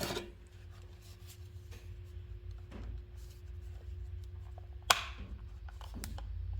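Light plastic handling clicks and one sharp click about five seconds in as the battery pack is released and pulled off a DeWalt 20-volt cordless drill, over a faint steady hum.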